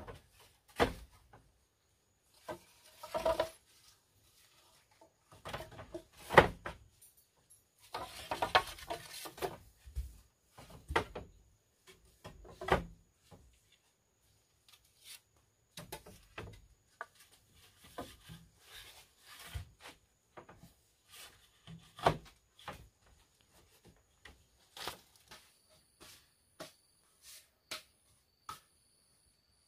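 Hollow bamboo tubes knocking and scraping against each other and against a bamboo frame as they are fitted into a wall: scattered wooden clacks with a few longer rubbing stretches.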